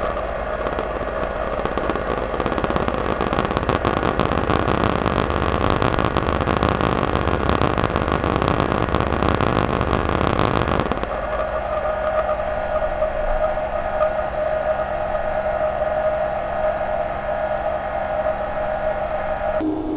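CNC-converted metal lathe running, its tool cutting a spinning workpiece with a rough, louder cutting noise over the steady machine hum and whine; about halfway through the cutting noise stops sharply and only the steady whine of the running machine remains.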